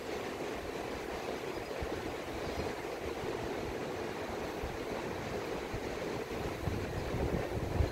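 Steady, continuous wash of Gulf surf breaking along the beach. Uneven low rumbles come in near the end.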